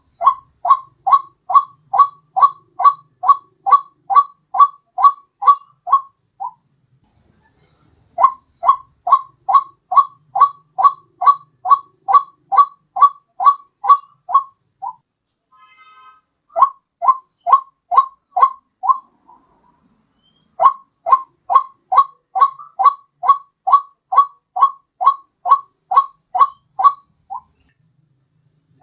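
White-breasted waterhen lure call: a repeated 'ruak-ruak' note, about two and a half a second, in runs of several seconds with short pauses between them.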